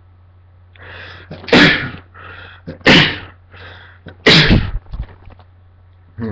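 A man sneezing three times in quick succession, about a second and a half apart, each sneeze led by a short catching in-breath. The sneezes are brought on by sniffing pepper.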